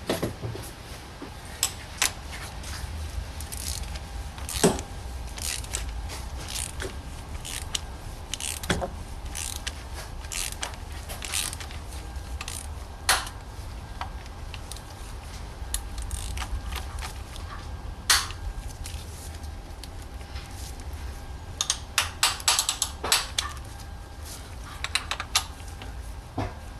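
Metal hand tools clicking and clinking on the oil filter housing as its cap is screwed down by hand and then with a wrench: scattered single clicks, with quick runs of clicks about 22 and 25 seconds in.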